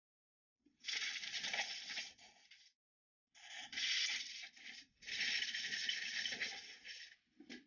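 Compressed air hissing from a blow gun aimed at a go-kart engine, in three bursts of one to two seconds each and a short puff near the end.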